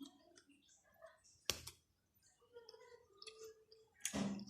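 Soft mouth clicks and smacks while chewing sour candy, with one sharp click about a second and a half in and a louder smack near the end.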